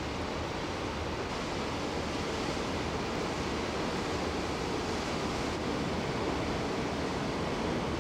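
Steady rushing outdoor noise of wind, even and unchanging, with no distinct events.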